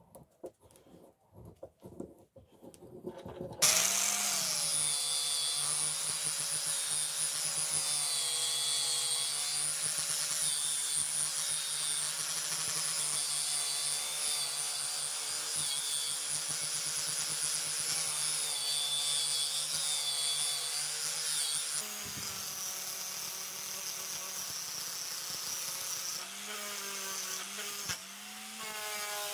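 Angle grinder with a wire cup brush running against a cast iron fly press frame to strip rust, its motor tone dipping and recovering as the brush is pressed on. It starts abruptly after a few seconds of faint clicking, and near the end it stops and spins up again with a rising whine.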